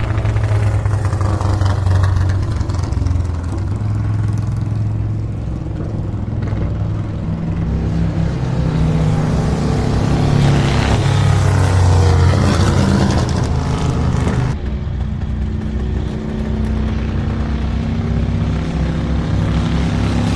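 Antique racing motorcycle engines running loudly and continuously, the pitch climbing in the middle as the bikes speed up, with an abrupt change in the sound about two-thirds of the way through.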